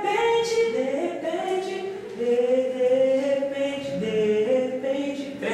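A small mixed vocal group rehearsing a gospel song, singing long held notes in several-part harmony that step from chord to chord.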